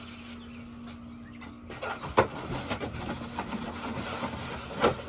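Unboxing noise as a miter saw's packaging is handled: rustling and scraping, with scattered knocks, two of them sharper, over a steady low hum.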